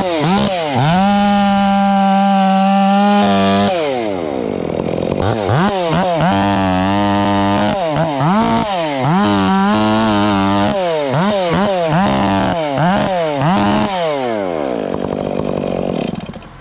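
Chainsaw cutting wood, its engine revving up and down over and over, the pitch sagging and recovering between stretches held at full throttle. It drops away near the end.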